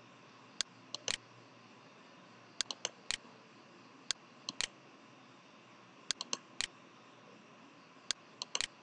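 Computer mouse button clicks, sharp and short, in quick clusters of three or four about every one and a half to two seconds, over a faint steady hiss.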